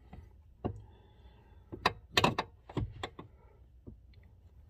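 Scattered light clicks and knocks of the steering shaft and its fittings being worked by hand under the dashboard while lining up the upper and lower steering shafts. The knocks come in a quick, louder cluster about two to three seconds in.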